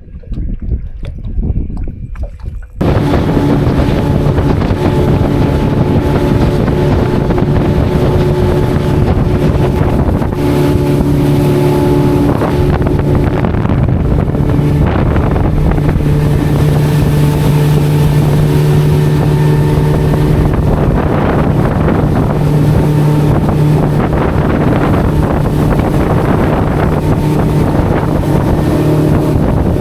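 Mercury outboard motor running steadily at speed, with wind on the microphone; it starts abruptly about three seconds in, after a quieter stretch.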